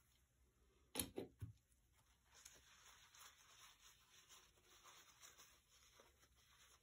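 Near silence: room tone, with two or three brief faint knocks about a second in.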